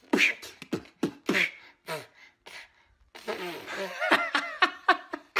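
A person's voice making short wordless vocal sounds, a few a second, coming thicker after about three seconds.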